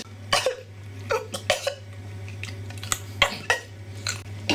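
A person coughing and spluttering in several short bursts, a reaction to the burn of biting into raw horseradish, over a steady low hum.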